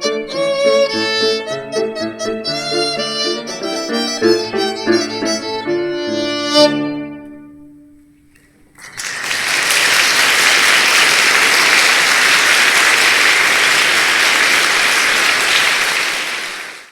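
Instrumental music with bowed strings plays and fades out. About nine seconds in, a loud, steady rushing noise with no pitch starts and runs on until it cuts away at the end.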